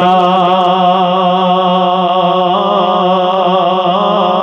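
A man's singing voice holds one long note with a slow wavering vibrato. It is a drawn-out phrase of a Punjabi devotional kalaam.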